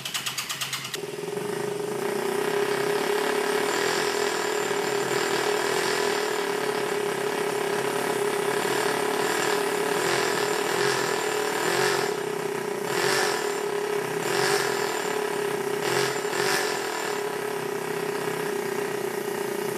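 Small two-cylinder nitro (methanol) model engine catching about a second in after a brief rapid cranking, then running steadily through a straight-pipe exhaust. Several short surges of throttle come about two-thirds of the way through.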